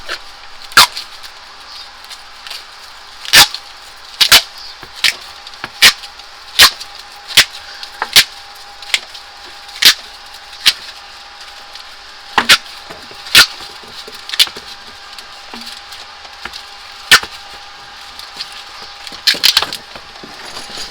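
Tape being pulled off the roll and wound around air-conditioner piping: about twenty sharp crackling snaps at irregular intervals, over a faint steady tone.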